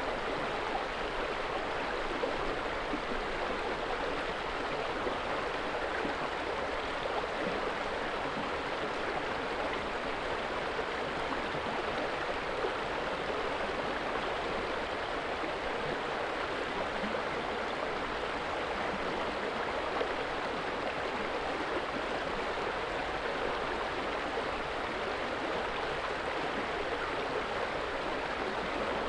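Steady rushing of water, an even unbroken roar of water pouring below.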